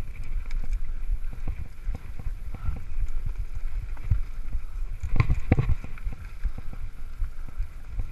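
Mountain bike rolling down a rough dirt singletrack, heard from a camera riding on the bike or rider: a steady rumble of tyres on dirt with the bike rattling and knocking over bumps. There are a couple of harder jolts about five seconds in.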